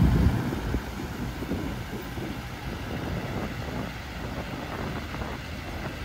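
Highway coach's diesel engine and tyres passing close by, a low rumble that is loudest at the start and fades as the coach pulls away.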